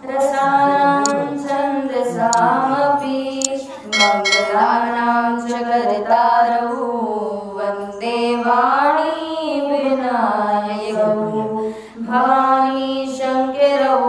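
A girl's voice singing a Hindu devotional bhajan, drawing out long held notes that bend up and down in pitch, with short breaks between phrases.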